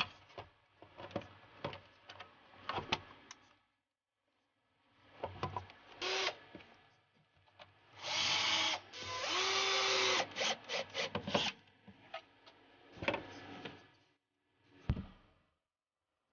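Clicks and plastic clatter as a subwoofer grille is handled and set in place, then a cordless drill-driver runs twice, about a second each, driving in the screws that fasten it, followed by a few clicks and a single knock near the end.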